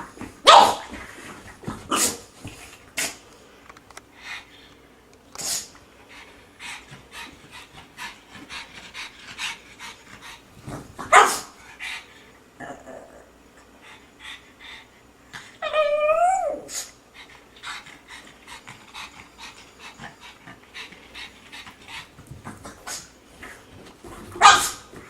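A pug making scattered short, sharp barking noises, the loudest near the start, about 11 seconds in and near the end. About 16 seconds in it gives one pitched, wavering call lasting under a second.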